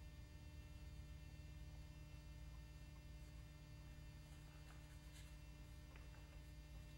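Near silence: a steady low electrical hum, with a few faint soft ticks roughly four to six seconds in.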